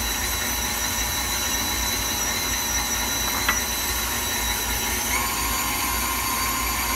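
KitchenAid stand mixer running, its motor whining steadily as the wire whip beats cake batter in a glass bowl. The whine steps up slightly in pitch about five seconds in as the speed is raised.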